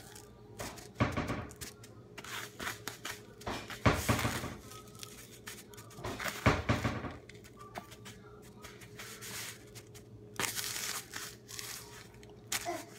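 Dry breadcrumbs rustling and scraping as a chicken breast is pressed and turned in them by hand to coat it, in several separate gritty bursts.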